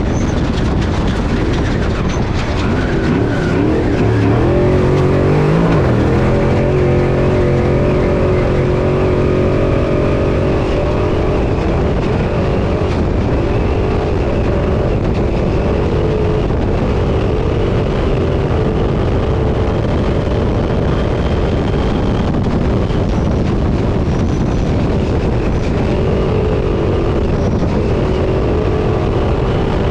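Off-road race truck engine pulling hard, heard from inside the car: its pitch climbs and drops with throttle and gear changes, including a sharp climb and drop about five seconds in. Underneath runs a constant loud rumble and rattle from the chassis and tyres on rough ground.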